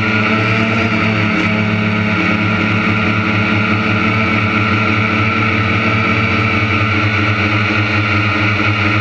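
Heavy engine of harvest machinery running steadily at one constant speed.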